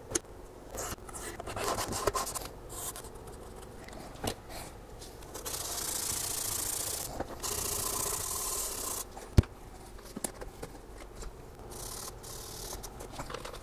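Blue painter's tape being smoothed onto a 3D printer bed, then scuffed with a Scotch-Brite pad. The scuffing is a steady rubbing hiss for a few seconds in the middle, with one sharp tap after it. Lighter wiping with a cloth follows.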